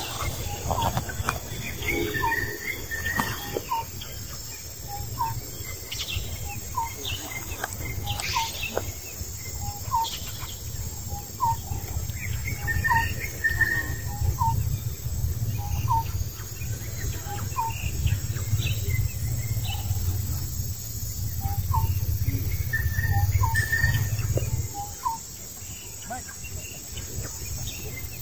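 Outdoor ambience: a bird repeating a short chirp about once a second, with a few higher chirps and scattered light clicks, over a low rumble that drops away near the end.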